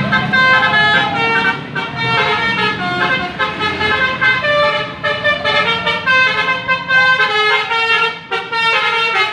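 Bus telolet horns, musical multi-tone air horns, playing a tune of short notes that change every fraction of a second, some sliding in pitch, with hardly a break.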